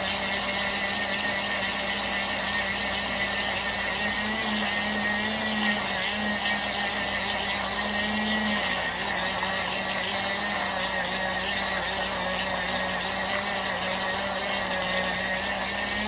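Tiny battery-operated washing machine running: its small electric motor hums steadily as it turns the wash drum with water and a mini makeup sponge inside, briefly a little higher and louder about four seconds in.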